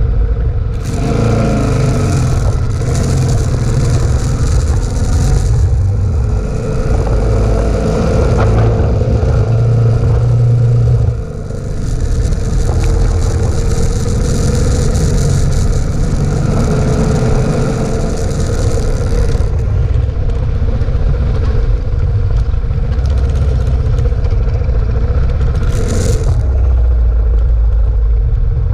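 Dirt motorcycle running while riding a gravel road, heard from a bike-mounted camera with wind on the microphone. The engine pulls away, rising in pitch about a second in, then runs steadily at speed, with a brief drop in level about eleven seconds in.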